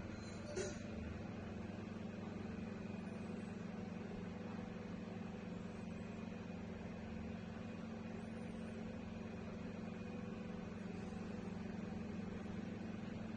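A steady low hum with a faint even hiss, and a single short click about half a second in.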